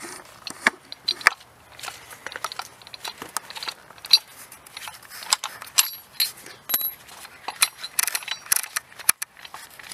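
Irregular metallic clicks and clinks of hand tools and small engine parts being handled, some with a short high ring.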